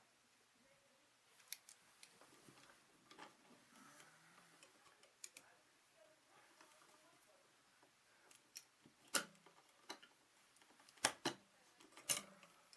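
Scattered sharp clicks and snips of wire strippers being worked on electrical wire, a few seconds apart at first, then louder and closer together near the end.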